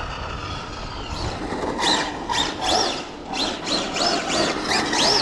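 Brushless motor of an Arrma Infraction RC car, a TP 4076 6S motor run on 8S, whining in short bursts. Its pitch rises and falls about six times as the throttle is worked.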